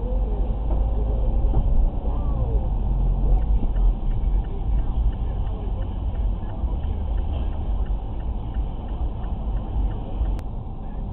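Car engine and road rumble inside the cabin, picked up by a dashcam. About three seconds in, a faint, regular ticking starts, at roughly two to three ticks a second, and it stops near the end.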